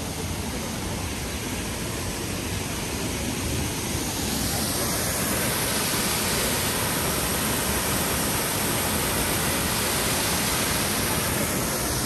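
Waterfall's steady rushing roar, growing louder and brighter about four seconds in and easing off again near the end.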